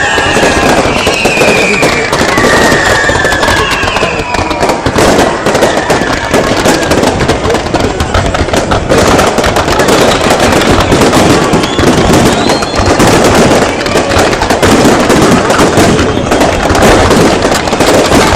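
Fireworks display going off in a dense, continuous barrage of crackling and banging, with a few high falling whistles in the first few seconds.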